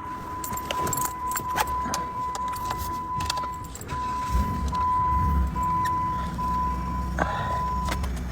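Car engine started about four seconds in and running at idle, after a run of clicks and jingling like keys at the ignition. A steady high warning beep sounds until near the end.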